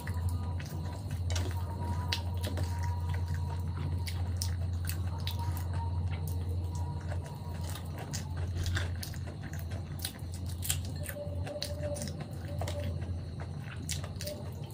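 Close-miked chewing with wet mouth smacks and clicks as a person eats khichdi by hand, with soft squishing of the rice and lentils between the fingers, over a steady low hum.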